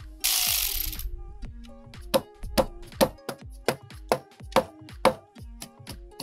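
Background music with a steady beat: held tones, a loud swelling rush in the first second, then sharp beats about twice a second over low falling thuds.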